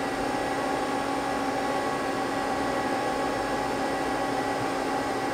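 Steady whir and hum of a powered-up Mazak CNC lathe standing idle, with cooling fans and several even humming tones and no change in pitch or level.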